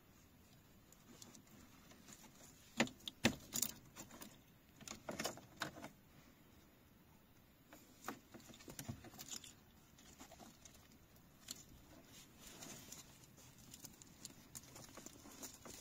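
Plastic wiring-harness connectors and loose wires being handled: scattered clicks and rattles of plastic plugs knocking together, loudest in a cluster about three seconds in and again around five to six seconds.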